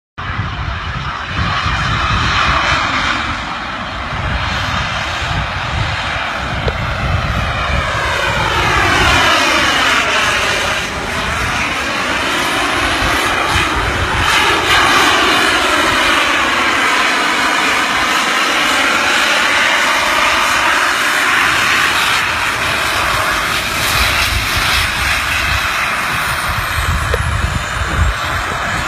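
Jet-powered hoverboard running with a loud, steady jet roar while a man flies on it. The tone of the roar sweeps down and back up twice as it moves about in the air.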